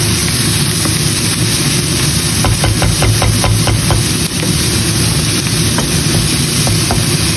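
Ground pork, onion and tomato sizzling in a cast-iron pan as a wooden spatula stirs them, its strokes scraping and tapping the pan in a quick run a couple of seconds in and again near the end. All of this sits over a steady low hum.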